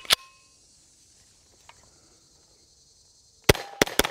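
A sharp metallic click with a short ring near the start as the Grand Power Stribog SP9A3 9mm carbine is handled, then a quiet stretch. About three and a half seconds in, the Stribog starts firing rapidly, several shots a second.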